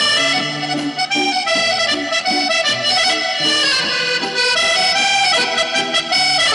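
Accordion playing a tune in a live performance, backed by a small band of electric guitar, bass guitar and drums.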